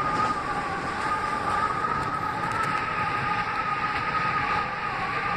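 R160B subway car running at speed, heard from inside the car: steady rumble and rail noise with a constant two-note high whine.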